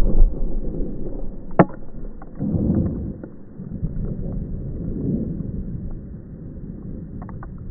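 The low rumble of a gunfire blast dying away, then wind rumbling on the microphone, with one sharp crack about a second and a half in and a few faint ticks near the end.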